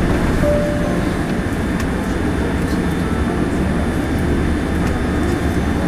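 Steady low cabin rumble of a Boeing 787-10 taxiing after landing: its Rolls-Royce Trent 1000 engines at taxi power and the landing gear rolling over the taxiway, heard from inside the cabin.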